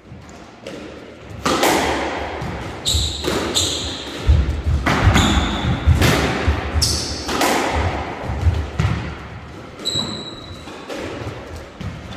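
Squash rally: the ball struck by rackets and smacking off the walls and floor of a squash court, each hit ringing with the court's echo, mixed with short high squeaks of court shoes on the wooden floor and heavy footfalls.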